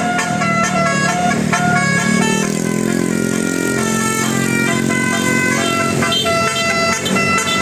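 Basuri telolet bus horn playing a tune of short notes that step from pitch to pitch, over the bus's running diesel engine, whose note rises for a moment about two seconds in.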